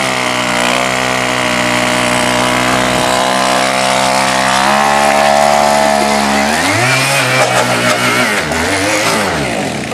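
Gas-powered stand-up scooter's small engine revving under throttle. It holds a steady high pitch, rises a little about halfway, then drops and climbs unevenly several times over the last few seconds as the throttle is worked.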